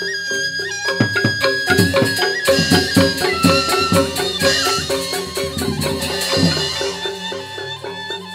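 Balinese joged gamelan music. A flute-like wind melody moves in held notes and steps over rapid, repeated struck pitched tones, with drum and cymbal-like percussion strokes.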